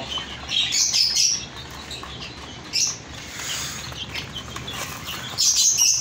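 Young chickens and quail chirping in short, high peeps as they peck millet from a metal tray, in scattered clusters with the loudest near the end.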